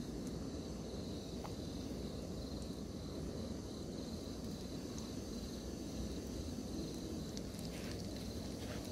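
Crumbed fish frying in a pan of oil on a portable gas canister stove: a steady sizzle, with a few crackles near the end. A steady high insect buzz sits behind it.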